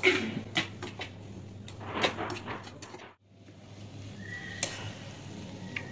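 Metal spatula scraping and clinking in a frying pan as scrambled egg and tomato are stir-fried: a run of sharp clicks in the first second and again around two seconds in. The sound cuts out briefly about three seconds in, then a faint steady hiss of frying with a few more clicks.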